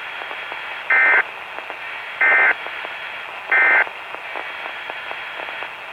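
Weatheradio Canada's SAME digital data tones: three short, buzzy two-tone bursts about a second apart, the end-of-message code that closes the weekly test. Between them is steady radio hiss.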